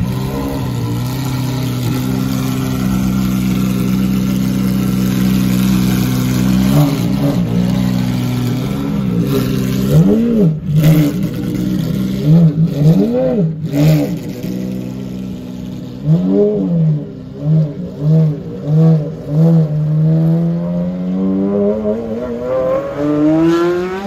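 Maserati MC12 Corsa's 6.0-litre V12 idling and being revved: a string of throttle blips, several quick ones in a row about two-thirds through, then the revs climb steadily near the end.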